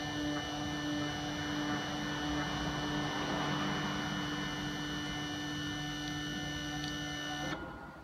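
CNC router's axis drive motors moving the spindle down to the touch-probe tool setter to measure the second tool, a V-bit: a steady mechanical hum with a high whine. It cuts off suddenly near the end as the bit reaches the probe.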